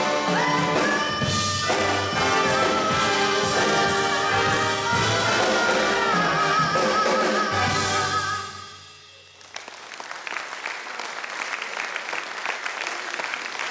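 A woman singing with a jazz big band, brass playing behind her, ending on a held, wavering final note that stops about eight and a half seconds in. About a second later the audience starts applauding and keeps on.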